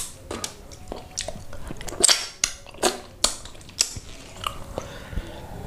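A person chewing a mouthful of curried red snapper head meat close to the microphone, in an irregular run of sharp smacking clicks of the mouth, loudest about halfway through.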